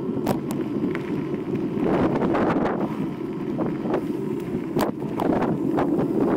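Mountain bike riding: wind rushing over the camera microphone and knobby tyres rolling over a rough, gravelly road, with scattered sharp clicks and knocks from the bike jolting over bumps.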